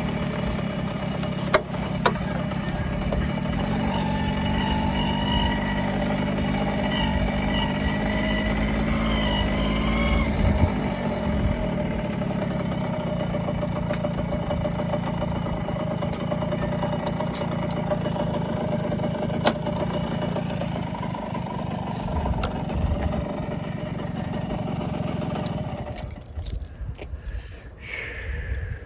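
Yamaha YB-1 small motorcycle engine running under way, its pitch shifting in the first ten seconds and then holding steady. The engine sound drops away about 26 seconds in.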